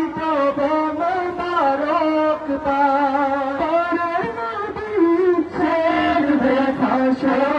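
A voice singing an Islamic devotional song (gojol) in a slow, ornamented melody, with long held notes that waver in pitch.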